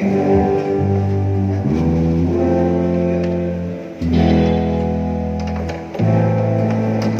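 Guitar music with a strong bass line: sustained chords that change about every two seconds.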